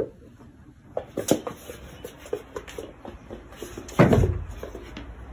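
A door knocking and rattling in its frame as a cat paws at it: a string of light knocks, then a louder bang about four seconds in.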